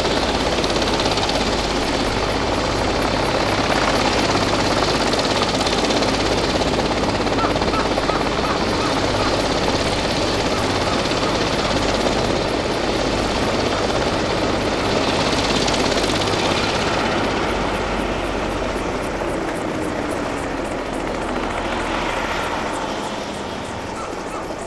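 Bell 427 twin-turbine helicopter running, a steady turbine and rotor noise that eases off and drops in pitch over the last several seconds.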